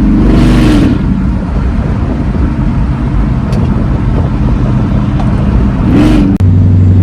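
Supercharged 5.4-litre V8 of a Mercedes-Benz E55 AMG running under way, with a brief rise in revs in the first second. About six seconds in the note dips for a moment, like a gear change, then settles into a deeper steady drone.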